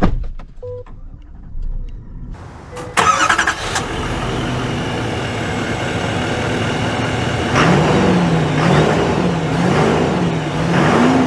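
Clicks and a short chime, then about three seconds in a GMC Sierra 2500's Duramax turbodiesel V8 cranks and starts and settles into a steady idle. Near the end the engine note rises and falls several times.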